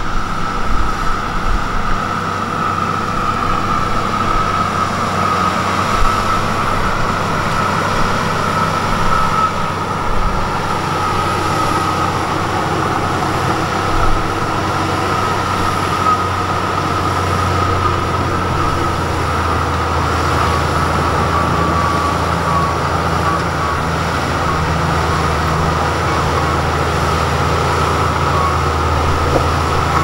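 LiuGong B160C crawler bulldozer working, its diesel engine running steadily under load while it pushes mud, with a continuous high-pitched whine over the engine drone. The low engine drone gets stronger about halfway through.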